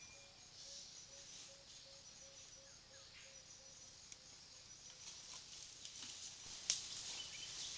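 Forest ambience: insects with a steady, pulsing high chirp, and a lower repeated note that stops about three seconds in. Dry leaves rustle and crackle throughout, with one sharp crack near the end.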